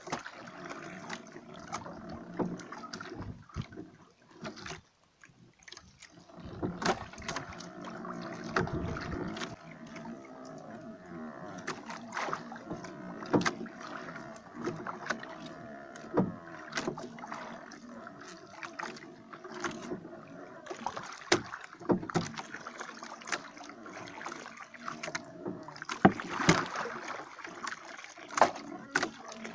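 Small wooden outrigger boat rocking at sea: water sloshing against the hull, with irregular sharp knocks and clicks as the fishing line is handled in the boat.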